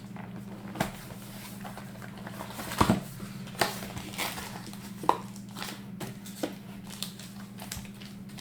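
A card box and its packaging being handled and opened by hand: scattered taps, clicks and short rustles, over a steady low electrical hum.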